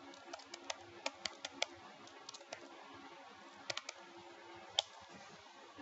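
Computer keyboard keystrokes in short, scattered runs as a class name is typed, with one sharper single click near the end. A faint steady hum lies underneath.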